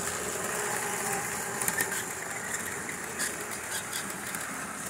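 O-scale model freight train pulled by a Parmele & Sturges New York Central R-2 electric locomotive, running on outside-third-rail track: a steady rolling rumble and motor whir, with a few sharp clicks as wheels cross rail joints. The sound eases slightly toward the end.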